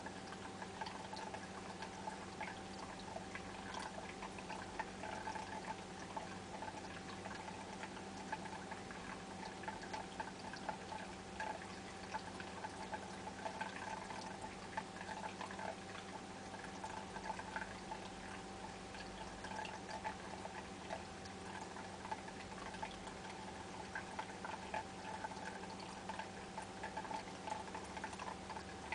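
Seawater aquarium's pump running with water circulating: a steady hum under trickling water and many small irregular crackles.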